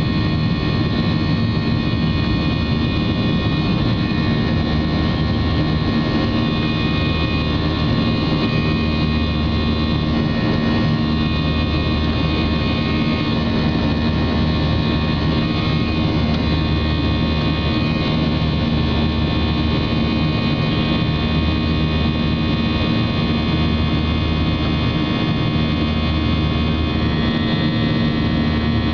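Jet airliner engines heard from inside the cabin during the climb after takeoff: a steady loud drone and rush of air, with a low throb that swells and fades every couple of seconds.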